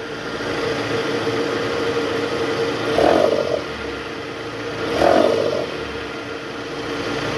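Toyota Harrier engine running in reverse with the AC on, revved briefly twice, about 3 and 5 seconds in. Under it the drive-belt tensioner makes a growling sound ('ngorok'): the tensioner is vibrating because its spring has gone weak.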